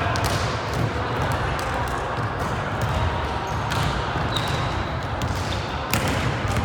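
Echoing gymnasium noise during a volleyball match: a steady hubbub of voices with scattered sharp knocks of the ball being struck and bouncing.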